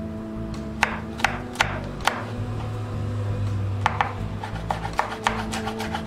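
Chef's knife slicing and chopping garlic cloves on a bamboo cutting board: a few separate sharp knife strikes, quickening near the end into rapid chopping.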